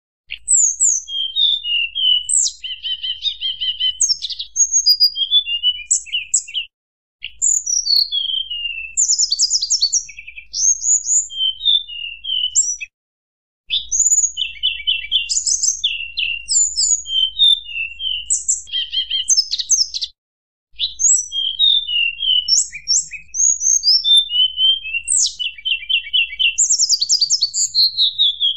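Tledekan gunung singing a continuous stream of quick, high whistled phrases, falling slurs and rapid trills in the flute-like 'nyuling' style. The song breaks off for three short silences.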